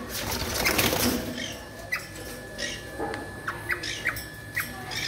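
Caged eastern rosellas: a burst of wing flapping in the first second, then several short, sharp chirping calls.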